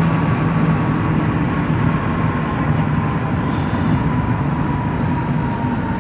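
Steady road and engine noise inside a moving car's cabin, with a faint whine that slowly drops in pitch.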